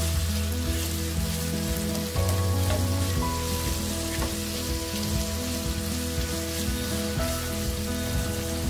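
Sliced onions sizzling in hot oil in a nonstick wok, a steady crackling hiss, with the spatula scraping the pan a few times as they are stirred. Soft background music with held notes runs underneath.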